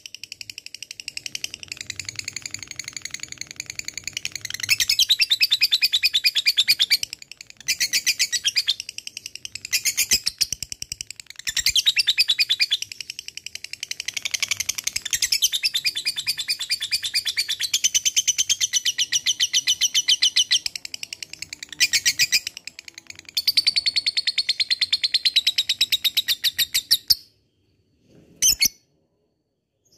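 Lovebird ngekek: long runs of rapid, high-pitched chattering trill, each going on for several seconds with short breaks between. The chatter stops a few seconds before the end, apart from one short burst.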